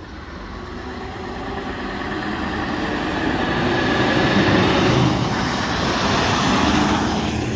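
Diesel truck tractor unit driving past close by: engine and tyre noise swell steadily as it approaches, peak as it passes, then ease off near the end.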